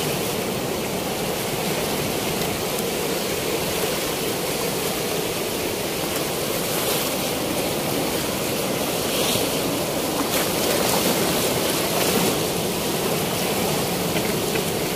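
Steady rush of fast, high river water flowing through and below a weir with its gates open.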